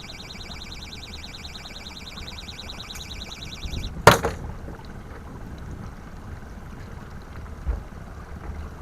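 A rapid, evenly pulsing high whirr that cuts off about four seconds in, followed at once by a single sharp knock, the loudest sound. A low rumble of wind on the microphone runs underneath, with a duller thump near the end.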